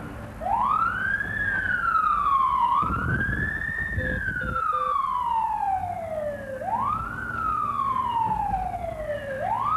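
Emergency vehicle siren wailing, heard from inside the cab of a fire department car. Each cycle rises quickly and then falls slowly, over and over a few seconds apart.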